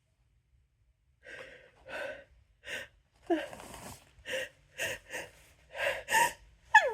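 A person's hitching, gasping in-breaths building up to a sneeze: about ten short catching inhalations that grow louder and come faster, with the sneeze itself just breaking at the very end.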